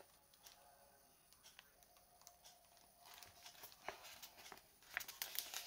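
Near silence at first, then faint crackling and rustling of a paper pattern sheet being handled and unfolded, a little louder near the end.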